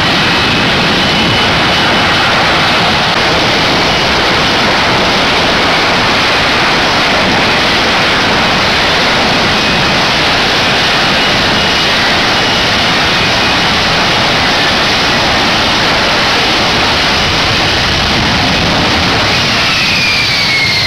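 F-35B STOVL jet's F135 engine and lift fan running at high power through a hover and vertical landing, a steady jet roar. Shortly before the end a whine falls in pitch as the engine throttles back after touchdown.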